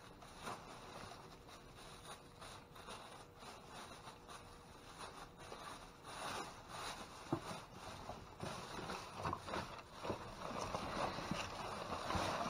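Scattered rustling, scraping and light knocks of things being handled and shifted about, denser in the second half.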